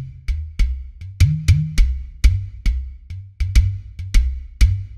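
Synthesized udu drum preset from Steinberg's Backbone drum re-synthesizer played in a steady rhythm of about three hits a second. Each hit is a low, pitched, hollow tone, and a few of them bend upward in pitch.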